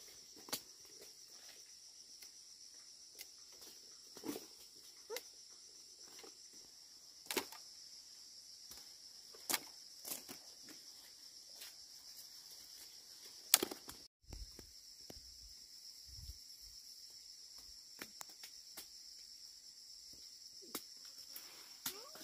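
Steady high-pitched insect chorus with scattered sharp clicks and snaps, the loudest about two-thirds of the way through, followed by a brief dropout in the sound.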